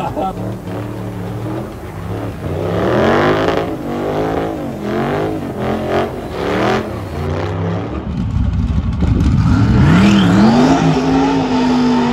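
Car engine revving up and down over and over while the car spins its tyres through a smoky drift. About eight seconds in a different engine takes over, climbing in pitch and then holding at steady high revs.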